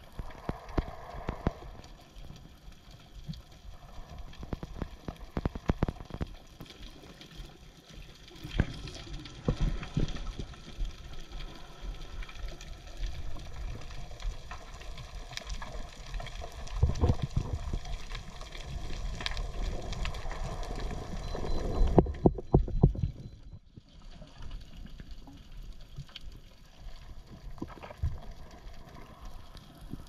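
Underwater sound on a coral reef picked up by a diving camera: a steady watery hiss with many scattered sharp clicks and crackles, and several heavier swirling, bubbling surges of water past the camera, the loudest about two-thirds through.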